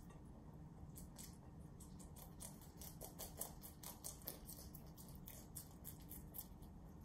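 Rabbits chewing leafy greens: faint, rapid, crisp crunching bites, several a second, starting about a second in.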